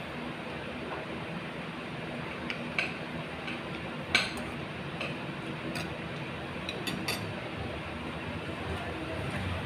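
A spoon clinking against a bowl several times while eating, the loudest clink about four seconds in, over a steady background hum.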